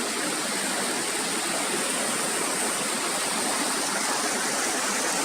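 Steady, even rush of flowing water from a waterfall or stream.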